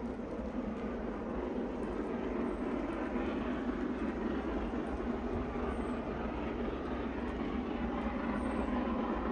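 LMS Jubilee class three-cylinder 4-6-0 steam locomotive 45699 working hard with a railtour train, a steady rumble of exhaust and running gear that grows louder.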